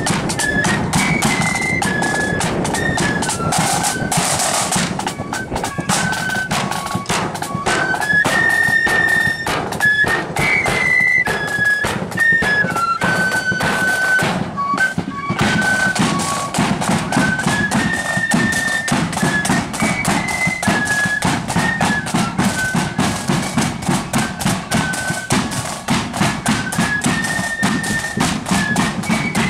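Marching flute band playing a tune in unison on flutes, with side drums and a bass drum beating out a steady march rhythm.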